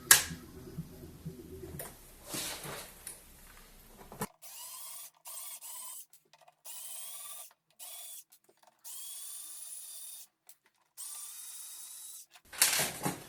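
A sharp click, then a small cordless drill-driver whirring in six short runs, each spinning up in pitch, as screws are driven out to open the case.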